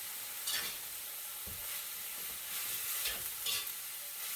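Fried rice with chicken and mixed vegetables sizzling in a hot pan as it is stirred, with a steady hiss and a few short scrapes of the spatula against the pan.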